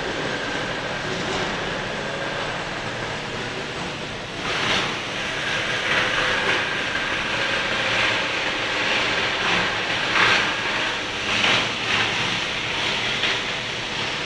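PU shoe-sole moulding machine with its rotary conveyor running: a steady mechanical hum and hiss, with short, louder bursts of hiss every one to two seconds from about four seconds in.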